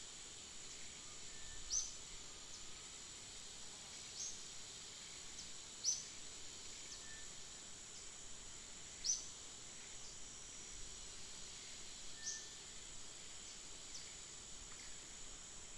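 Outdoor insect ambience: a steady high-pitched insect drone, with a short high chirp repeated every two to three seconds.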